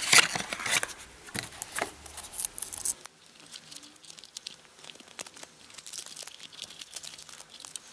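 Cardboard packaging insert being handled, then plastic wrapping crinkled and torn open around a USB charger. The rustling and clicking are busiest for the first three seconds, then turn to fainter, scattered crinkles.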